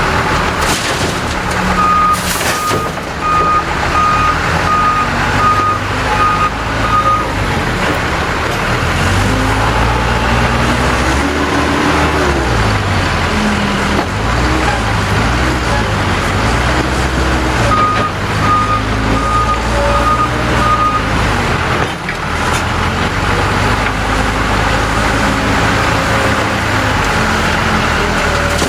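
Case 580L backhoe loader's diesel engine running under working load, its revs rising and falling as the loader is worked. A reversing alarm beeps steadily, about one and a half beeps a second, in two spells: early on for about five seconds, and again for about three seconds past the middle.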